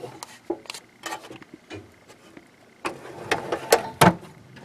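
Tool chest drawers being shut and opened, with scattered clicks and a denser cluster of knocks about three to four seconds in.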